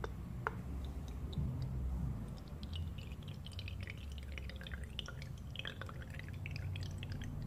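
Witch hazel being poured through a small plastic funnel into a bottle that already holds a layer of oils. A patter of small drips and bubbling trickle picks up a couple of seconds in, over a low steady hum.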